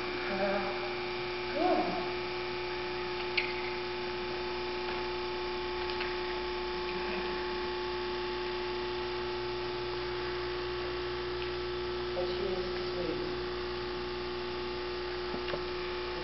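Steady electrical hum with several fixed tones. A short voice-like sound comes about two seconds in, and a single sharp click follows a little later.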